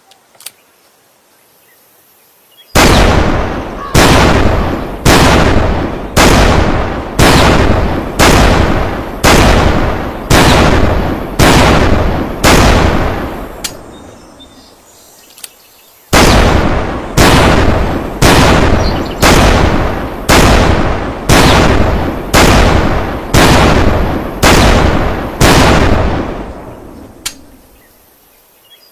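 Barrett M82A1 semi-automatic .50 BMG rifle firing two strings of about ten shots each, roughly one shot a second, every shot trailing a long rolling echo. A pause of a couple of seconds separates the strings, and faint clicks come before and between them.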